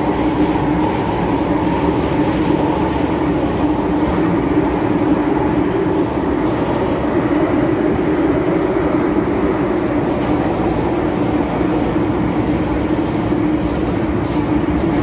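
Inside an MTR Tsuen Wan Line M-Train (Hong Kong metro train) car running at speed through the tunnel: a steady, loud roar of wheels on rail with a constant low hum.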